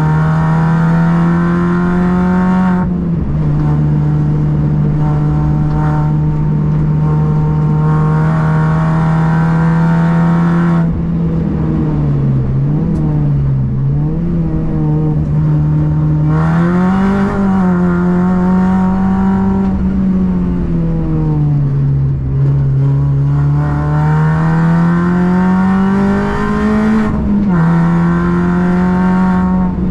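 Car engine running hard on a race circuit, its pitch climbing and falling with the throttle through corners and straights. The pitch drops sharply near the start and again near the end, like upshifts.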